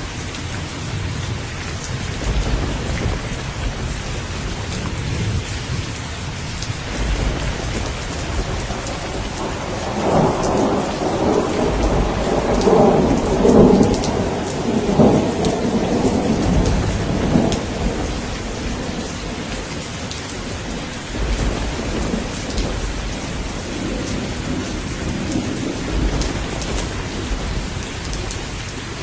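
Steady rain with rolling thunder: a long rumble swells about ten seconds in, peaks twice, and dies away after about eight seconds, with the rain going on throughout.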